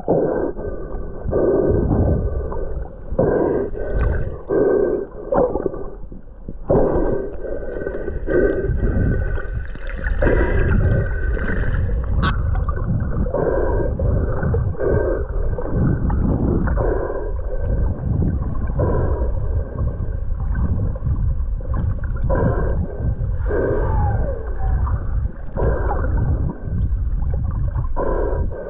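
Humpback whales calling underwater: a long series of pitched calls, one every second or two, with a brief high rising squeal about twelve seconds in, over a steady low rumble of water noise.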